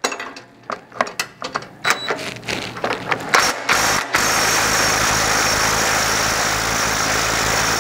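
A cordless drill with a 15/16 socket runs steadily for about four seconds from about four seconds in, tightening a corn head row unit's chain tensioner. Before it starts there are a few short clicks and knocks from the socket and tools being handled.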